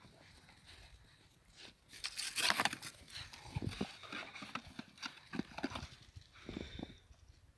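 Puppies making short, irregular grunts and yips amid scuffling, with a louder rustling burst about two seconds in.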